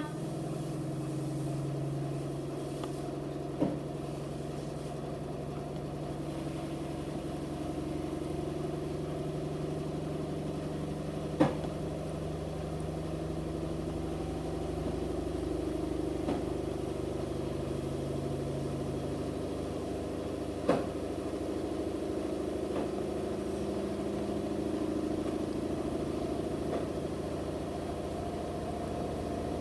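Electrolux washing machine spinning an unbalanced load: a steady motor and drum hum whose tones drift, with three sharp knocks several seconds apart. The spin is still working up toward its 1200 rpm top speed.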